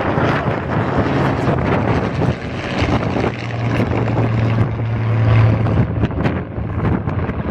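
Piston engines of a Spitfire and a Hurricane droning in flight. The hum swells about halfway through, with wind buffeting the microphone throughout.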